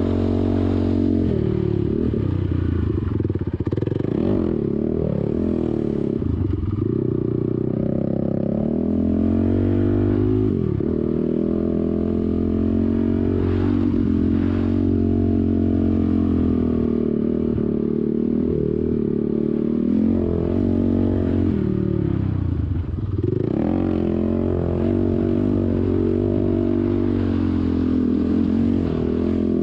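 ATV engine running hard while riding, its pitch repeatedly dropping off and climbing back as the throttle is eased and opened again.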